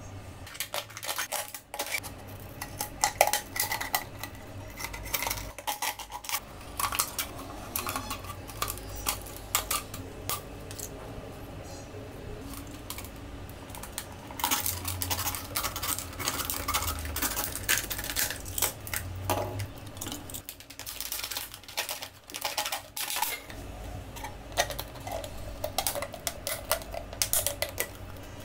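Thin clear plastic bottle crackling and clicking as it is handled and cut with a craft knife, many sharp irregular clicks and crinkles, thickest in the middle stretch.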